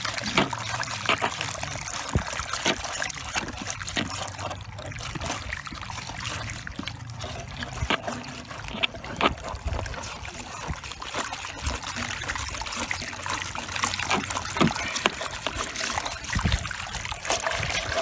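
Muddy water thick with mineral sediment gushing and splattering from the open drain hole at the bottom of a hot water heater tank onto wet gravel. The drain valve was taken off because it was plugged with built-up minerals. A steady wash of water with many small splatters throughout.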